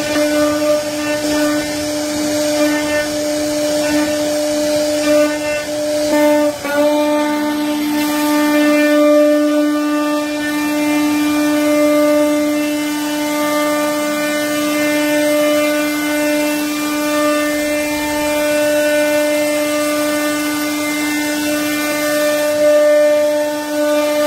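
CNC router spindle running steadily with a constant high whine as its bit cuts into a wooden door panel. The whine briefly dips about six and a half seconds in.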